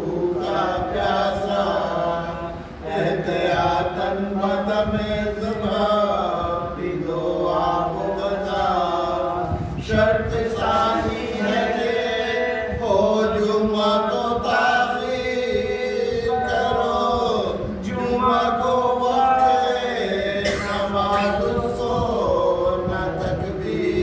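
Men's voices chanting a marsiya, the Urdu elegy recited at Muharram, in a continuous melodic recitation with voices joined together.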